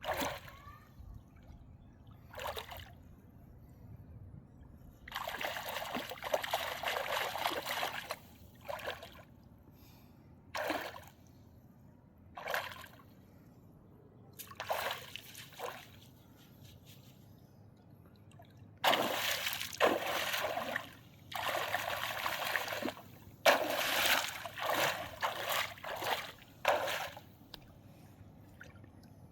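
Water splashing, sloshing and trickling in irregular bursts, the longest lasting two to three seconds, from river water being stirred up.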